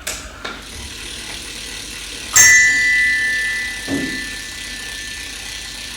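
A struck metal object, bell-like, rings out once about two and a half seconds in and hangs on with a long, slowly fading ring. A softer, duller knock comes near four seconds, with a few small taps at the start.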